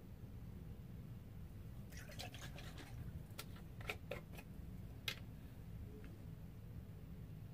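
A short run of light clicks and taps from handling objects, between about two and five seconds in, over a low steady hum.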